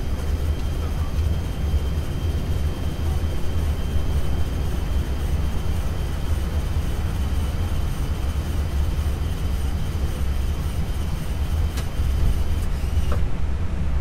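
Airbus A320 cockpit noise while taxiing: a steady low rumble of the engines and airframe, with the windshield wiper motor's steady high whine over it. Near the end there is a sharp click, and the whine cuts off about a second before the end as the wiper stops.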